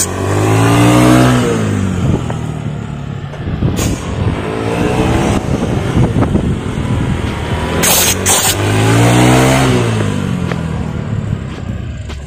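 Honda Beat scooter's single-cylinder engine revving as it is ridden in tight circles, its pitch swelling and falling twice, strongest about a second in and again about nine seconds in. A few short sharp clicks are heard over it.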